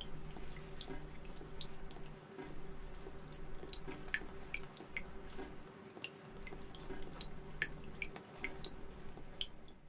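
Water dripping in small, irregular drops, several a second, over a steady low hum.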